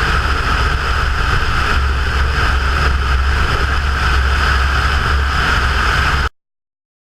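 Cessna 172's piston engine and propeller running at a steady drone in flight. The sound cuts off abruptly to dead silence about six seconds in.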